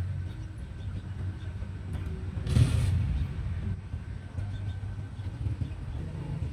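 Steady low engine rumble, like a vehicle running nearby, with a short burst of hiss about two and a half seconds in.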